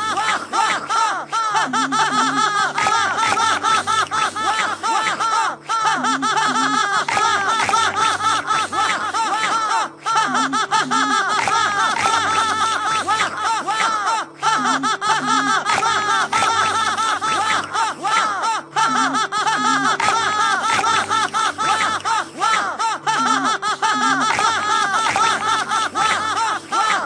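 An animated character's rapid "ha ha ha" laughter looped over and over on top of music, the same loop restarting about every four seconds.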